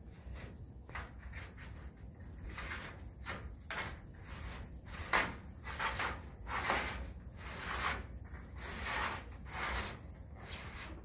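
Repeated rubbing and scraping against the gazebo's sheet-metal roof panel as it is worked on by hand, about two short strokes a second, loudest about midway.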